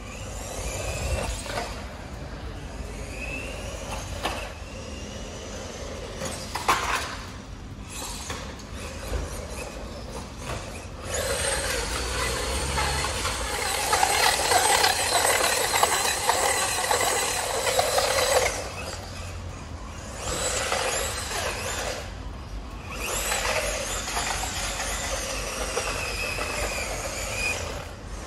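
Loolinn 1:16 RC truck run at full speed: its brushed electric motor and gears whine, rising and falling in pitch, while its tyres squeal and scrabble on brick paving. It is loudest for several seconds in the middle, as the truck passes close by.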